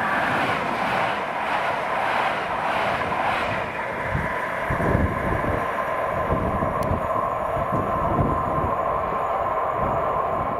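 Czech Railways (ČD) electric multiple unit passing at speed: a steady rush of wheels on rail and air with a steady whine. From about four seconds in it is joined by uneven low rumbling.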